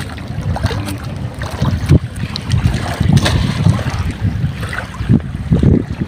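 Strong wind buffeting the microphone in uneven gusts, over small waves lapping at the river's edge, with a few sharp handling knocks.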